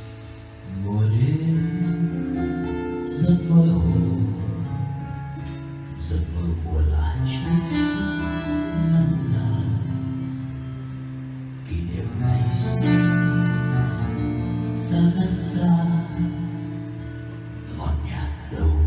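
Live band music: a man sings a slow Vietnamese ballad to acoustic guitar and upright bass, with light percussion.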